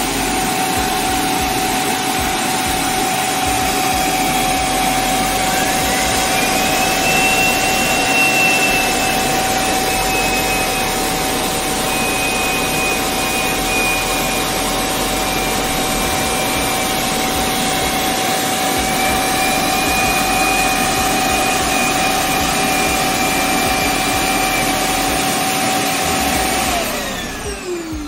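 Roborock Q7 Max+ auto-empty dock's suction motor running, quite loud, pulling the dust out of the robot's bin into the dock's dust bag. It makes a steady rushing noise with a constant whine, and a second, higher whine rises about five seconds in. Near the end the motor spins down with a falling pitch.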